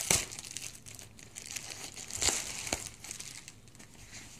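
Crinkling of a metallic bubble mailer and foil-like plastic wrapping handled by hands as the contents are pulled out: an irregular crackling rustle with sharper crackles at the start and twice a little past two seconds in.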